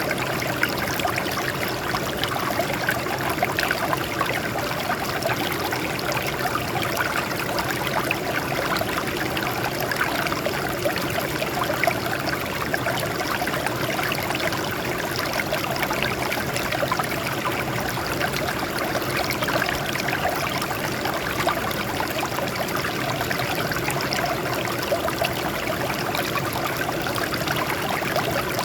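Water flowing and splashing over rocks: a steady, even rush with a fine, constant patter of small splashes.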